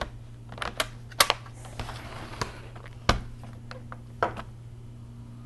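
Acer Aspire 5551 laptop battery being pushed into its bay and the laptop handled: a string of sharp plastic clicks and knocks, the sharpest about a second in and a heavier knock about three seconds in.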